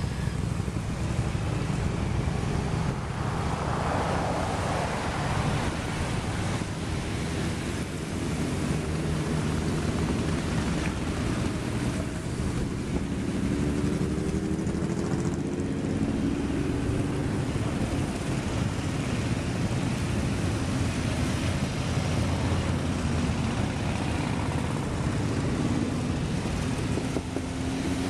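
Many motorcycle engines running as a long procession of bikes rides past one after another, a continuous mixed rumble with single engines swelling and fading as they go by. Wind noise on the microphone runs under it.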